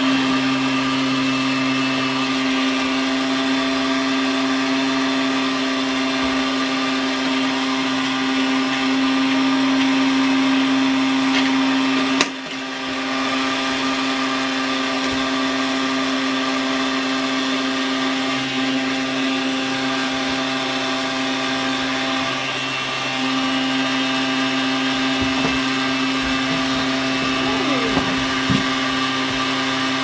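Henry vacuum cleaner running steadily, a constant motor hum with a strong held tone. There is a single sharp knock about twelve seconds in.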